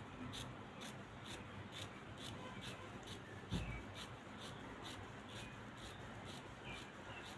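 Scissors snipping through fabric, a faint click at about two cuts a second. One low soft thump about halfway through.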